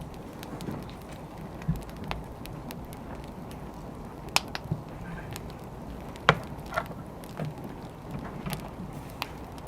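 Wood fire crackling: a steady low hiss with scattered sharp pops every second or two, the loudest about six seconds in.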